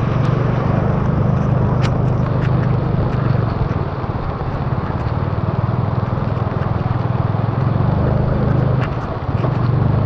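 Motorbike engine running steadily on the move through heavy rain, with the hiss of rain, wind and tyres on the wet road. Scattered sharp taps of raindrops on the camera, and a brief dip in the engine sound near the end.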